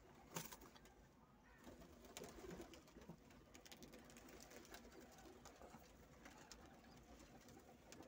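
Near silence with faint domestic pigeon cooing, clearest about two seconds in.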